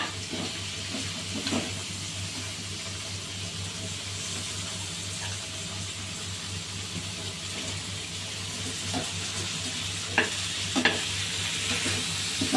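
Pieces of pork large intestine sizzling steadily in a thick sauce as they are stir-fried in a non-stick pan, over a steady low hum. A spatula knocks against the pan once early on and twice about ten seconds in.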